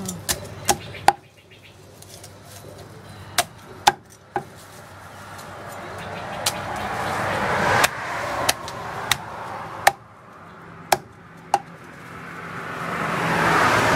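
A cleaver chopping through a roasted chicken on a thick round wooden chopping block: about a dozen sharp single chops, mostly a second or so apart with a few longer gaps. Behind them a rushing background noise swells twice.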